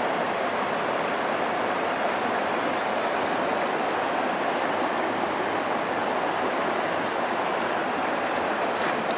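River water flowing: a steady rush with no break, with a few faint clicks over it.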